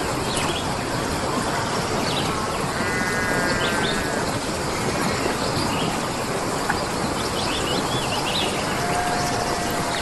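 Steady rush of flowing water with small birds chirping over it. About three seconds in, a wavering animal call lasts a little over a second, and near the end a single whistled tone is held for about a second.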